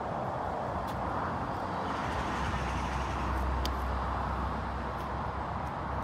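Steady outdoor background rumble and hiss, growing louder between about two and five seconds in, with a couple of faint short clicks.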